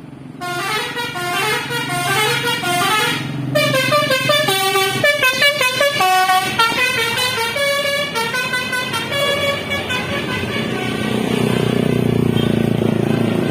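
A bus's 'telolet' basuri musical horn playing a tune: quick rising runs of notes repeated several times, then a longer melody of changing notes. After about ten seconds the horn stops and the bus's engine and road noise take over.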